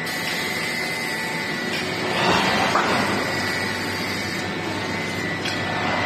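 LVT flooring production line machinery running: a steady mechanical hum with a constant high whine, swelling louder a little past two seconds in, with a brief knock near three seconds.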